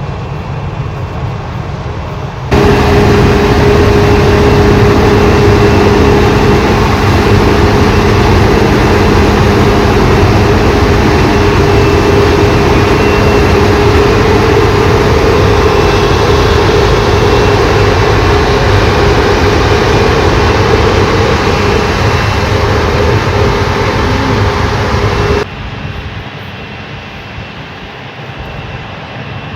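Heavy harvest machinery running loud and steady, a dense engine and mechanical drone with a steady hum in it. It starts and stops abruptly, about two and a half seconds in and a few seconds before the end, with a quieter, duller engine sound before and after.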